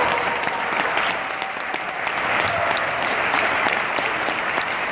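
Spectators applauding, with many separate hand claps.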